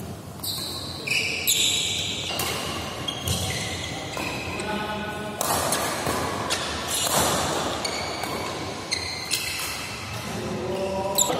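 Badminton doubles rally: rackets striking the shuttlecock in sharp hits every second or two, with rubber-soled shoes squeaking on the court, echoing in a large sports hall.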